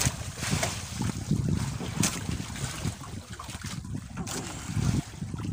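Wind buffeting the microphone in uneven low gusts, with open sea washing around a small outrigger boat.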